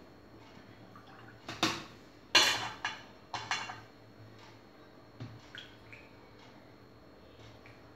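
Painting tools being handled: a run of clinks and knocks, as of a brush tapped against a hard container, the loudest with a short ring, followed by a few fainter taps.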